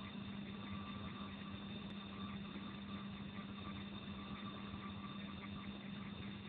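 Steady low hum with a constant hiss, unchanging throughout.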